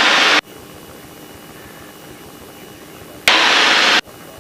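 Piper Cherokee cockpit engine and wind noise heard through the headset intercom. A loud rush cuts off abruptly just after the start and falls to a low steady drone, then switches back on sharply for under a second near the end, as a headset microphone's gate opens and closes.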